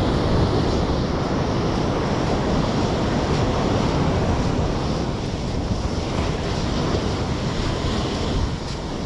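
Ocean surf rushing onto a sandy beach, mixed with wind buffeting the microphone in a steady, dense rush that swells slightly now and then.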